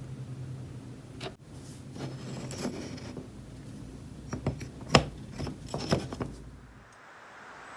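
Light rubbing and small sharp clicks of hands handling tools and small parts, with a cluster of clicks about four to six seconds in, the loudest near five seconds.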